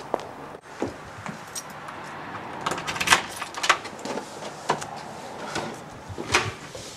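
A few footsteps, then keys jangling and clicking for about a second, followed by a couple of single sharp clicks, as of a key in a door lock.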